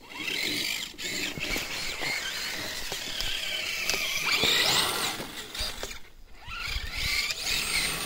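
Kyosho Blizzard EV RC snowcat driving through snow. Its electric motor and drivetrain whine, rising and falling in pitch with the throttle, over the churn of its tracks. It drops away briefly about six seconds in, then picks up again.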